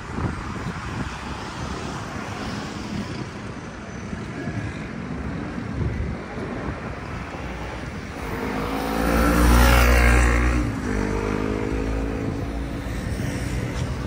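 Outdoor city background noise with wind buffeting the microphone; a large motor vehicle passes close, its engine hum swelling to a peak about ten seconds in and then fading.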